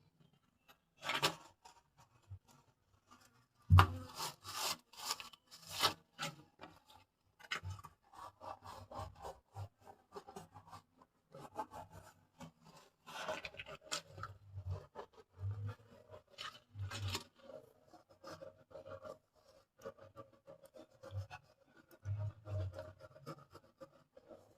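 Irregular rubbing and scraping close to the microphone, with scattered knocks and low thuds, loudest about four to six seconds in.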